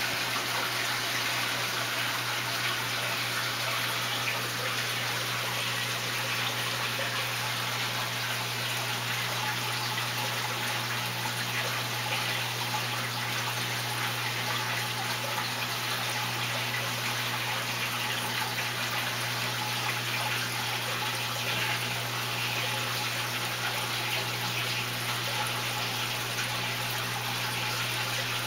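Aquarium filter running: a steady rush of moving water over a low, steady hum.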